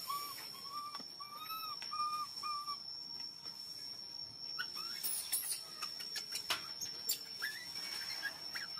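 Infant long-tailed macaque crying with short whistle-like coo calls, about five in the first three seconds. Higher squeaky chirps and a few clicks follow from halfway on. These are the cries of a hungry baby asking to nurse.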